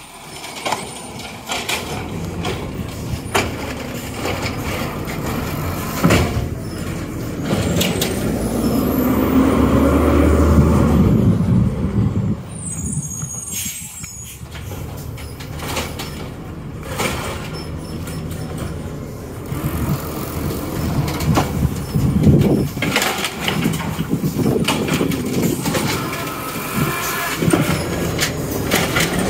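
Natural-gas garbage truck at work: its engine runs and grows louder about ten seconds in, with short air-brake hisses in between.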